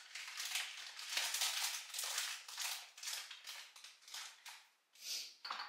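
A glass jar of sesame seeds worked by hand: a run of short, dry rasping strokes, about two or three a second, that stops just before the end.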